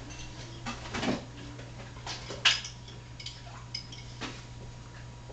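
Dishes and cutlery clinking now and then in a kitchen, with the sharpest clink about two and a half seconds in, over a steady low hum.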